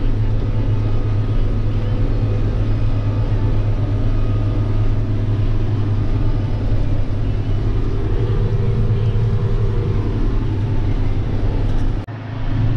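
John Deere 7810 tractor's six-cylinder diesel engine running steadily at road speed, heard from inside the cab as a continuous low drone. The sound drops out briefly near the end.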